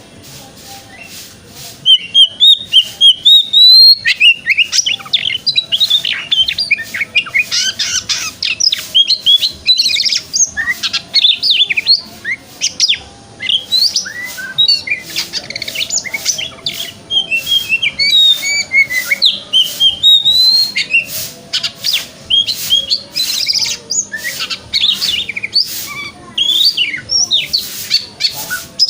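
Oriental magpie-robin singing loudly: a varied stream of sweeping whistled notes mixed with fast scratchy chatter and clicks, picking up about two seconds in after a quieter start.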